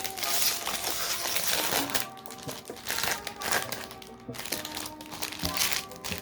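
Plastic wrapping of a Pokémon card pack crinkling and crackling as it is opened by hand, in uneven rustling stretches, over background music.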